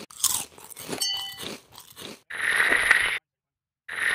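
A person chewing crunchy snack sticks close to the microphone, crisp crunches over the first two seconds. Then comes a loud hissing noise lasting about a second that cuts off abruptly, and it comes back briefly near the end.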